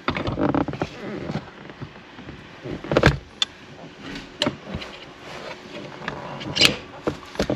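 Scattered clicks and knocks of metal parts being fitted under the car as the short-throw shifter's shaft is put on. Three sharper knocks stand out, spread through the middle and later part.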